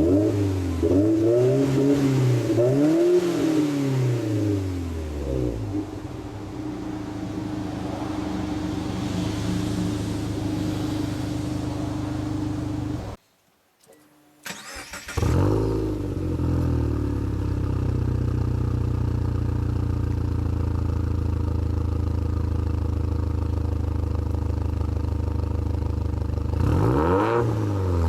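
Subaru WRX STI's turbocharged flat-four boxer engine through an aftermarket exhaust, blipped in several quick revs that rise and fall, then idling steadily. Around the middle the sound cuts out for about a second. It then returns with a rev that settles back into a steady idle, and a few more quick revs come near the end.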